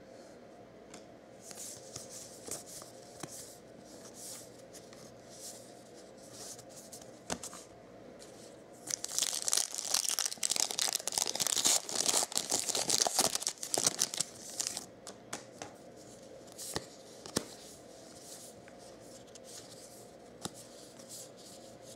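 Foil trading-card pack wrapper being torn open and crinkled, loud and continuous for several seconds in the middle, with lighter rustling of cardboard cards being handled before and after.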